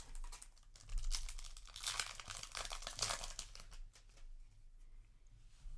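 Foil trading-card booster pack wrapper crinkling and tearing, a dense crackle that is loudest in the middle and fades near the end.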